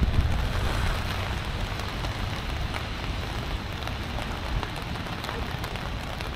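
Steady rain hissing, with scattered drops ticking close to the microphone. A low wind rumble on the microphone eases off in the first second.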